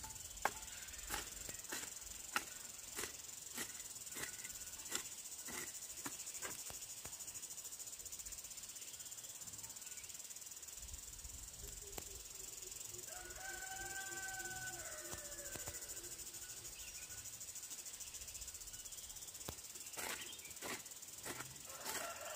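Steady high-pitched chirring of insects, with a series of sharp knocks about every half second over the first several seconds. A brief pitched call comes about halfway through, and a few more knocks near the end.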